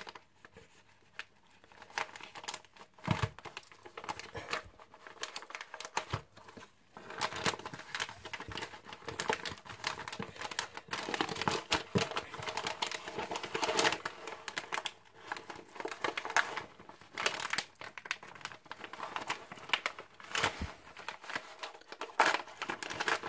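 Paper mailer envelope and its paper wrapping crinkling and tearing as they are opened by hand, a dense run of irregular rustles starting about two seconds in.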